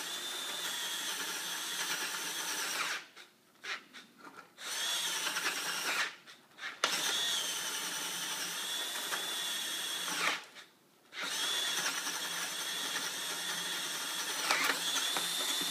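Festool CXS 12-volt compact cordless drill driver boring into a wooden block, its motor running steadily with a high whine. The motor stops three times, about three, six and ten seconds in, the overload protection kicking in under the load.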